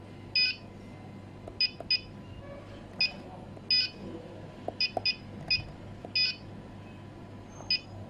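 Coolmay TK touchscreen HMI's key beeper giving about ten short electronic beeps at uneven intervals, one for each tap of a finger on the screen's keys: the panel's touch confirmation.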